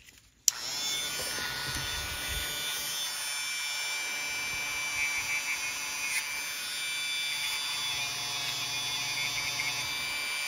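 Handheld rotary tool fitted with a small buffing wheel, switched on about half a second in and running with a steady whine. It is buffing tarnish off the metal electrical contacts of a model locomotive's truck.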